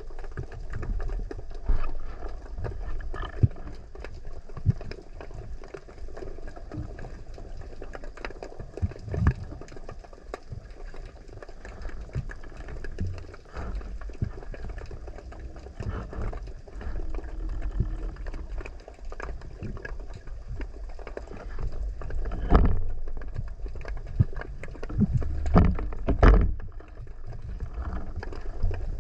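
Underwater sound picked up by a diving camera: a steady low rumble of water moving against the housing, with scattered faint clicks and a few louder surges about 22 seconds in and again around 25 to 26 seconds.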